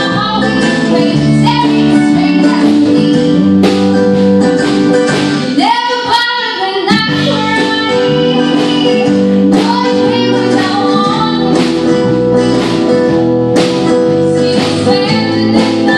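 Live band playing a song: a woman singing lead over strummed acoustic guitar, mandolin, bass guitar and drum kit. The low end drops out briefly about six seconds in before the full band comes back.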